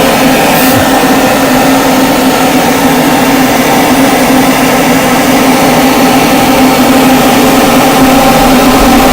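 Blower fan of a 12-volt Arctic Air 52-quart air-conditioning cooler running loud and steady: an even rush of air over a constant motor hum.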